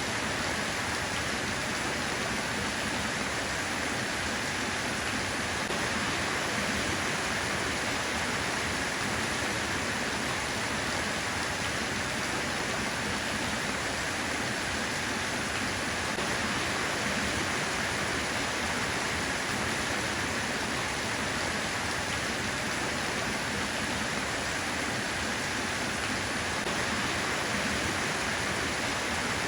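Steady rain, an even hiss that keeps the same level throughout.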